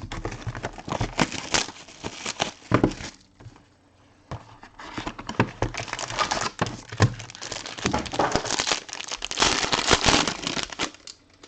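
Crinkling and tearing of a trading-card pack's plastic wrapper as it is opened, with cards being handled. There are dense, irregular crackles, with a brief pause about four seconds in.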